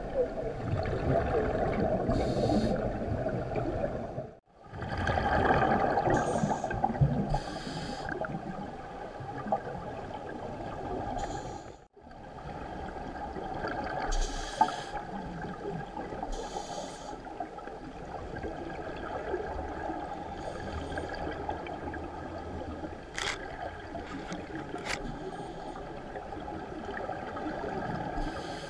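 Muffled underwater rumble picked up through a camera's waterproof housing, with a scuba diver's exhaled regulator bubbles hissing and gurgling every few seconds. Two sharp clicks come in the second half, and the sound drops out briefly twice.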